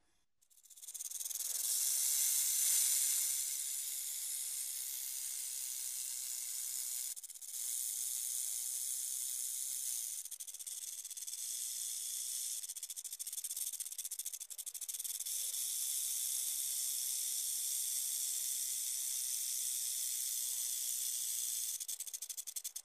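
Snake hissing: a long continuous high hiss that swells over the first couple of seconds, then holds steady with a brief break about seven seconds in.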